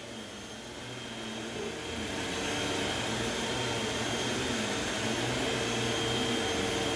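Vacuum cleaner running steadily with a high whine, growing louder over the first couple of seconds and then holding level.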